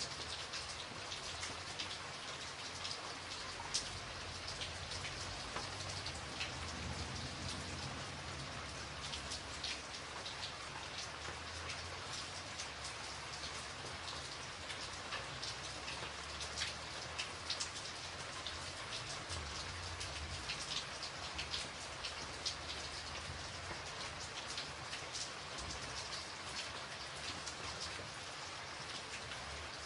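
Steady rainfall: an even hiss of rain with many sharp individual drop strikes close by, over a low rumble.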